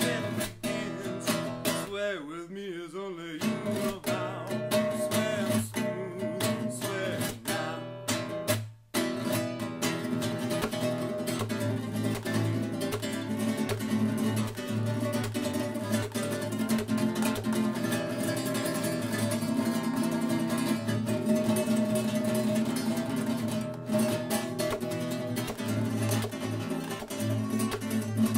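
Nylon-string classical guitar strummed in a rumba rhythm, with picked melody lines over the chords; the playing briefly drops out about nine seconds in.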